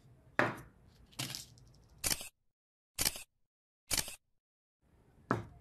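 Camera-shutter click sound effects, six short sharp clicks about one a second, with dead silence between the middle ones.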